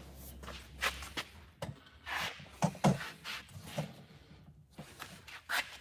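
Footsteps on a concrete floor, with a few irregular light knocks and a faint low hum that stops about a second in.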